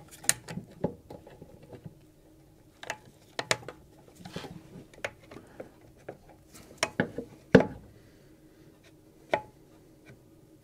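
Scattered clicks and knocks of pliers and a spring hose clip being worked onto a coolant hose at a plastic coolant tank, over a faint steady hum.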